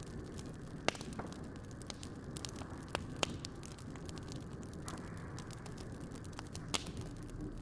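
Charcoal crackling and popping under turning souvlaki skewers as fat drips onto the coals, with a few sharper pops over a low steady rumble.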